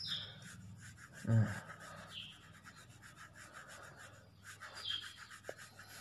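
A 2B graphite pencil scratching on paper in quick back-and-forth diagonal shading strokes, laying down a first light layer of tone. About a second in, a short low voice sound falling in pitch cuts in, the loudest moment.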